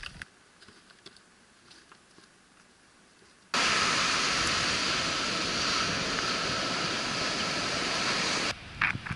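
Surf washing up a sandy beach: a loud, steady rushing hiss that starts suddenly about three and a half seconds in and stops about a second before the end, after a few seconds of faint quiet.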